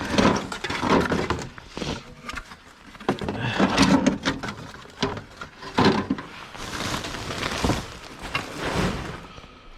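Scrap being handled and rummaged through in boxes: an irregular run of knocks, clatters and scrapes as objects are moved and set down.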